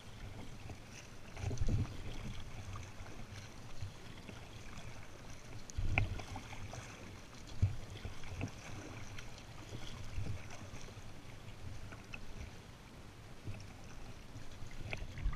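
Kayak being paddled across flat calm water: double-bladed paddle strokes swishing and dipping through the water, with a few dull low thumps.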